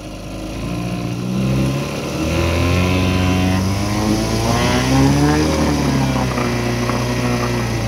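1984 Evinrude 4 hp two-stroke outboard being throttled up from idle to part throttle while running in a barrel of water. The engine note climbs over the first few seconds, wavers up and down and peaks about five seconds in, with the propeller churning the water in the barrel.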